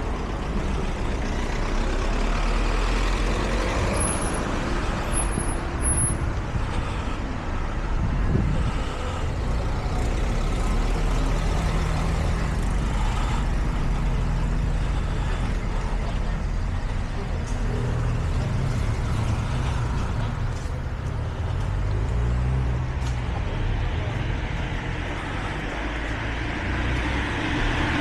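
City street traffic: motor vehicles running steadily with a continuous low engine rumble, and a vehicle passing near the end.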